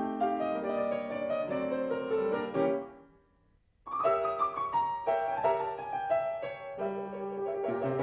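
Solo piano music playing as a silent-film accompaniment; it fades out about three seconds in, and after a brief silence a new passage begins.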